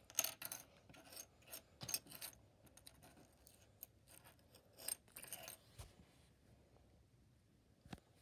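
Faint handling sounds: scattered short clicks, taps and rustles as small objects are moved about by hand, in a few clusters with quieter gaps between.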